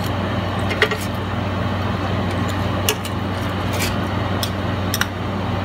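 Steady motor-fan hum with a hiss of ribs sizzling in the air fryer basket, and a few sharp clicks of tongs against the basket.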